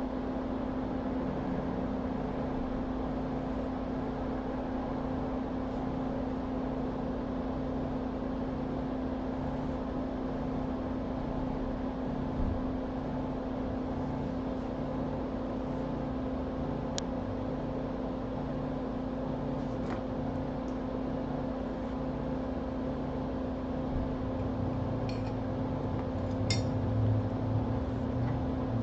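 Steady hum of a bench fume-extractor fan running, with a constant tone and a regular low pulsing. A few faint small clicks come in the second half, and the low rumble swells near the end.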